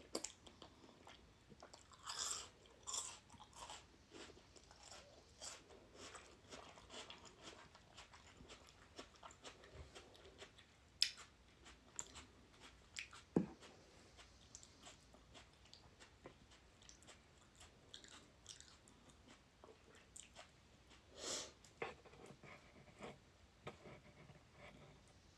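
A person chewing a mouthful of instant ramen noodles close to the microphone: soft, irregular wet mouth clicks and smacks, with a few louder ones scattered through.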